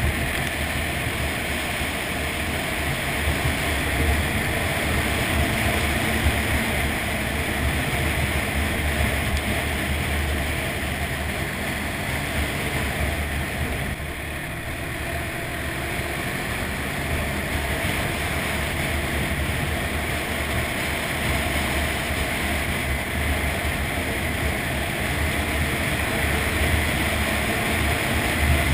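ATV engine running steadily under way on a dirt trail, with wind noise on the microphone and a constant low rumble; the level dips slightly about halfway through.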